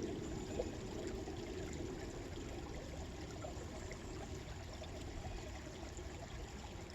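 Steady rushing of running water, like a small stream, with no distinct events.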